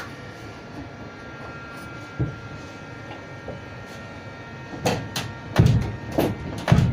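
A knock, then a run of loud knocks and clunks in the last two seconds, from panels being worked loose and handled inside a van during an interior strip-out, over a steady background hum.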